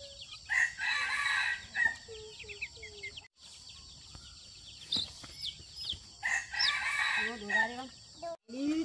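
A rooster crowing twice, each crow lasting about a second and a half, the second about six seconds after the first.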